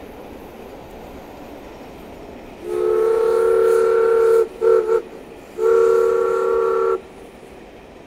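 Steam locomotive's whistle sounding a long blast, two short toots, then another long blast, over the steady running noise of the passenger train.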